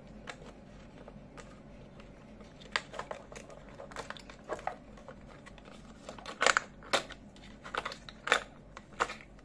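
Steel step drill bits clicking and knocking against their plastic case and insert as they are handled, a scatter of sharp clicks that grows denser and louder in the second half.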